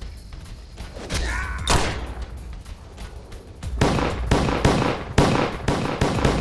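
A quick string of about six pistol shots between about four and six seconds in, with one earlier sharp shot about two seconds in, over a film score with a steady low bass.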